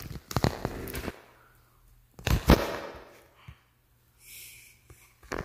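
Irregular knocks and thumps of footsteps on a wooden staircase: a cluster in the first second and the loudest pair about two and a half seconds in.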